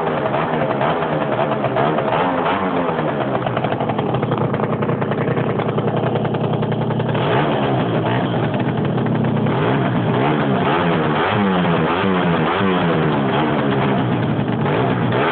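Peugeot Jet Force scooter engine running through a Laser Pro Original exhaust, revved up and down over and over. In the middle it holds a steadier pitch for a few seconds, then quick throttle blips follow at about one a second.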